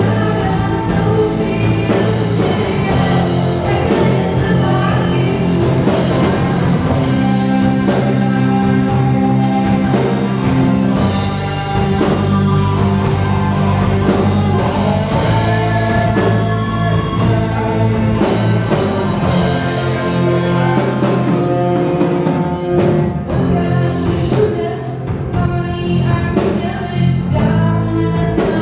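Live rock band playing: distorted electric guitars, bass, keyboard and a drum kit keeping a steady beat, with a female voice singing over them.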